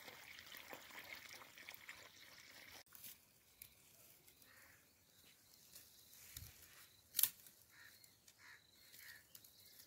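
Faint rustling of dry fodder stalks as snake tongs probe into the pile, with one sharp click about seven seconds in.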